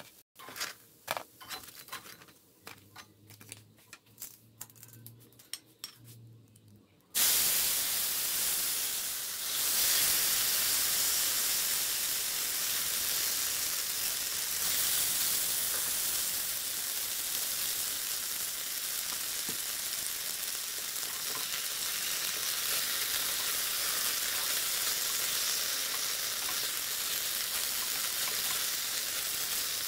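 Tongs clicking against a cast-iron skillet as pan-fried rice cakes are turned. About seven seconds in, marinated chicken pieces go into the hot oil with a sudden loud sizzle, which keeps going steadily while the chicken is stirred.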